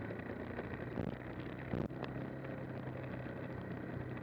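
KTM 390 Adventure's single-cylinder engine running at a steady, low level while the bike is ridden along a dirt lane, with a faint knock or two about one and two seconds in.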